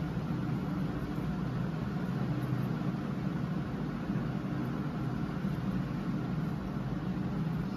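Steady low background rumble with a faint hiss, even throughout, with no distinct handling clicks or knocks.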